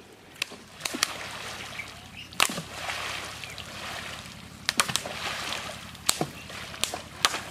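Bamboo poles slapping down hard on shallow floodwater, a dozen or so sharp irregular smacks among constant splashing and sloshing from several people wading.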